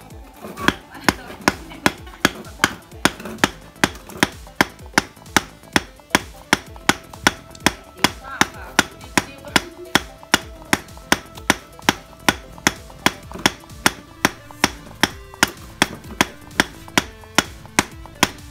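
Wooden club striking the top of a wooden ramming rod, tamping black powder tight inside a PVC rocket tube: a steady run of knocks, about two a second.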